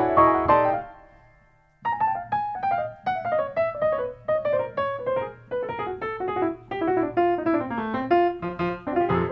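Background piano music: a chord rings out and fades away, then after a short pause a run of quick notes follows, the melody stepping downward and climbing again near the end.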